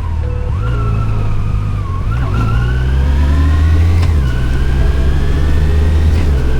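Yamaha FJR1300's inline-four engine running under way, with a whine that climbs slowly and breaks about two seconds in and again about four seconds in.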